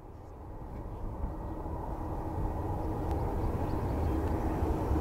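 Jet airliner approaching, its deep engine rumble growing steadily louder, with a steady droning hum.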